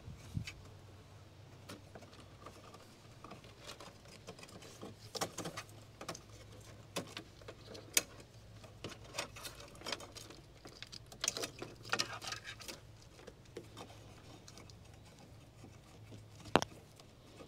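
Hands working parts inside a pool heater cabinet: scattered small clicks, taps and rustles from handling a plastic sensor fitting and its wiring, with a few sharper clicks. A faint low hum runs underneath.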